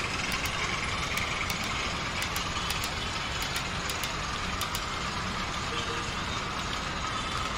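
Model railway train running steadily along the track: a continuous rumble with light, irregular ticking.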